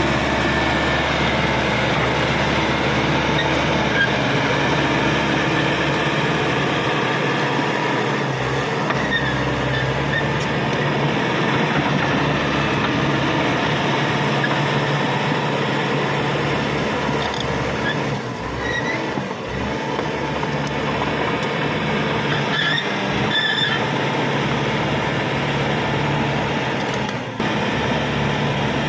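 Caterpillar D5K XL crawler dozer working: steady diesel engine running under load with the running gear clanking, and a few short high squeaks from the steel tracks.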